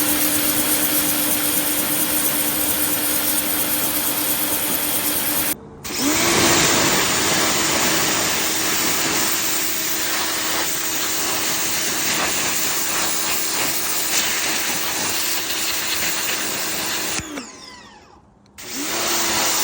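Patoolio PA4000 electric pressure washer running: a steady motor hum over a loud hiss. It cuts out suddenly about five and a half seconds in, then spins back up with a rising hum and runs on. It winds down with a falling hum about 17 seconds in, then starts again briefly near the end.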